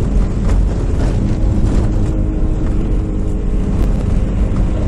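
Four-wheel-drive car driving steadily over snow-covered ice, heard from inside the cabin: a constant engine and tyre drone with a few light knocks and rattles.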